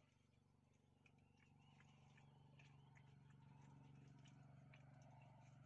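Near silence: a faint steady low hum that slowly swells, with scattered faint high chirps.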